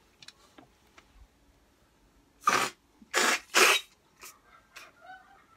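A sick person coughing three times in quick succession, about halfway through, with a few faint clicks before it.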